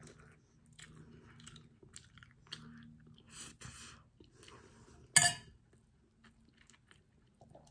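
Close-up eating sounds: a mouthful of rice and milkfish being chewed, with small mouth clicks. One sharp clack about five seconds in.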